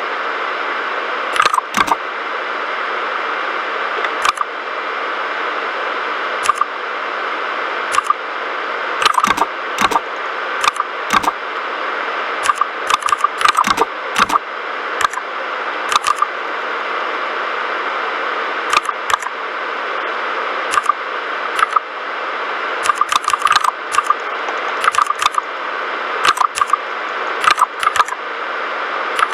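Typing on a mechanical keyboard with red linear switches: irregular runs of sharp key clicks, some quick bursts and some single strokes, over a steady hiss.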